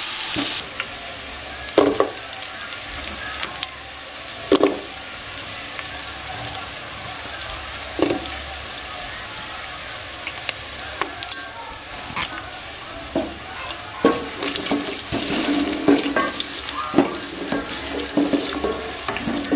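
Chopped onions and carrots sizzling in hot oil in a metal pot, with a steady hiss. A wooden spatula knocks and scrapes against the pot every few seconds as they are stirred.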